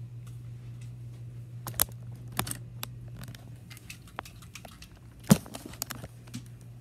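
Scattered clicks, knocks and rustles of objects being handled, with one louder knock about five seconds in, over a steady low hum.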